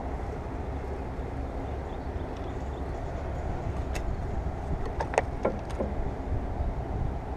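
Steady low background rumble, with a few light clicks and knocks about four and five seconds in.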